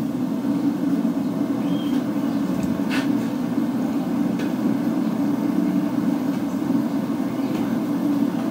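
Steady roar of a gas forge burner running, with a faint metallic clink about three seconds in as a Stillson pipe wrench turns on a red-hot railway spike held in an anvil.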